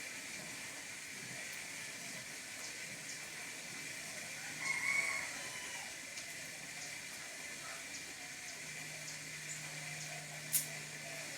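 A rooster crows once, about five seconds in, over a steady hiss with scattered small crackles from a wood campfire, and one sharper pop near the end.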